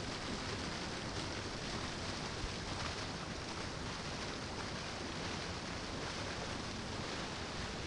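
Steady rushing of a waterfall: an even hiss of falling water that holds level throughout, with no distinct events.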